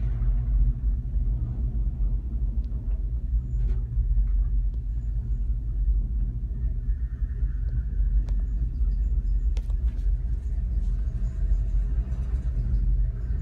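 Steady low rumble of a gondola cabin riding along its haul cable, heard from inside the car, with a couple of sharp clicks about ten seconds in.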